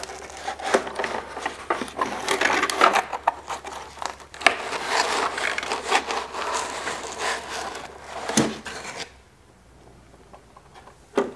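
Cardboard packing insert rubbing and scraping against the inside of a desktop laser cutter as it is worked loose and pulled out, with a few sharp knocks; the handling goes quiet about nine seconds in.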